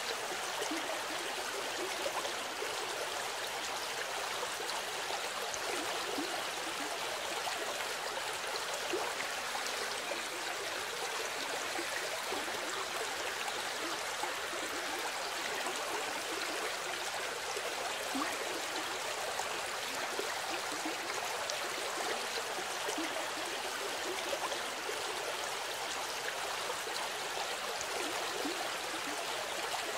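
Running water, like a small stream: a steady, even rush with no breaks.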